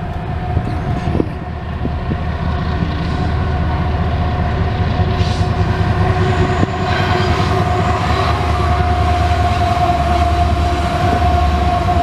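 Union Pacific freight train led by GE ES44AC diesel locomotives rolling past: a deep engine and rail rumble that grows louder as the locomotives draw near, with a steady tone held throughout.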